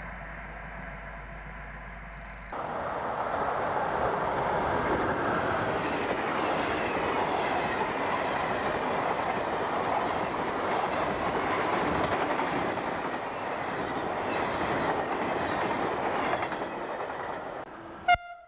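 Passenger train coaches passing close at speed: a loud, steady rush of wheels on rails with clatter, starting abruptly about two and a half seconds in after a quieter steady hum. It eases off near the end and is cut off by a sharp click.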